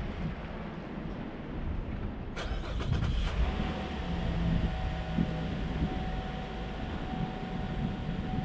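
Car running, a steady low rumble of engine and road noise, with a short run of clicks about two and a half seconds in.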